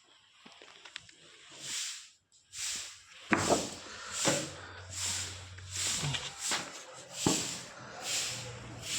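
Repeated rasping strokes of a hand tool working wood, about one stroke every three quarters of a second, with two sharp knocks in the middle and near the end.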